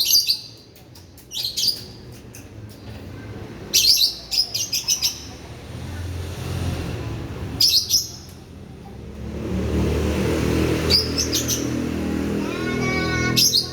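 Lovebirds chirping in short, sharp high-pitched bursts every few seconds, over a low steady background rumble.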